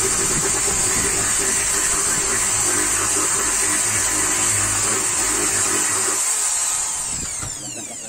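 Corded electric hand drill running steadily as it bores a hole through a washing machine's control panel. The trigger is released near the end and the drill winds down with a falling whine.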